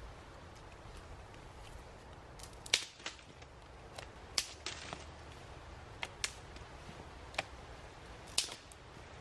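Popcorn kernels popping in a pot over a camping gas stove: about ten sharp, scattered pops at irregular intervals, starting about two and a half seconds in, over a steady hiss.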